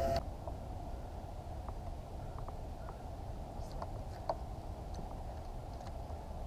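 Quiet, steady low rumble aboard a small aluminium fishing boat on the water, with a few faint light ticks scattered through. The clearest tick comes a little past four seconds in.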